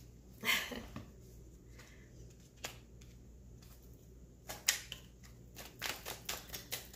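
A tarot deck being shuffled by hand: a soft swish of cards about half a second in, a lone flick, then a run of quick light card flicks and taps over the last couple of seconds.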